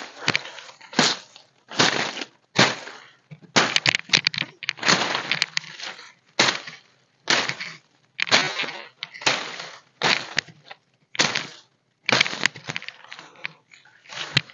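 Dry leaves and undergrowth crunching and rustling in short, irregular bursts, roughly one a second, as plants and leaf litter are cleared from the ground by hand and foot.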